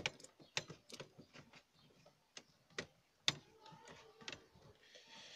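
Irregular small clicks and ticks of a screwdriver and fingers working screws into the plastic trim of a Chevrolet Aveo's climate-control panel, the sharpest click a little past the middle.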